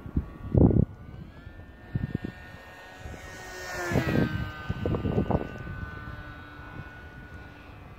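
Motor and propeller of an RC model Messerschmitt Bf 109 flying by: a steady high whine that rises in pitch about a second in, then drops and swells as the plane passes close near the middle. Several short low thumps come in between.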